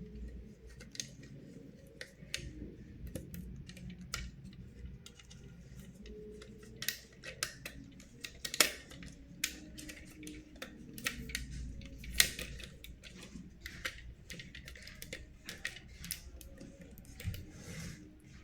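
Toy packaging and plastic pieces being handled: irregular small clicks, taps and crinkles, with two sharper clicks about 9 and 12 seconds in.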